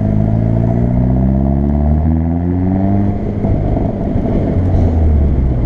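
Hyundai i30 N's turbocharged 2.0-litre four-cylinder engine and exhaust under way, climbing steadily in pitch as the car accelerates for about three and a half seconds. It then turns coarser and less even, with an abrupt drop and fresh rise right at the end.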